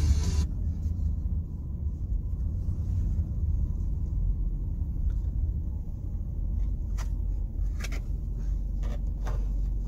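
Low, steady rumble of a car rolling slowly, heard from inside the cabin, with a few light clicks in the second half.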